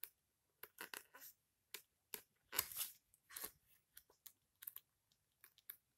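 Pages of a small paper user manual being leafed through: faint, short paper rustles and flicks, the loudest about two and a half seconds in.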